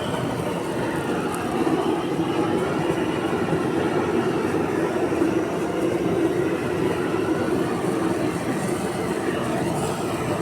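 Steady roaring flame burning the hair off an animal's hide.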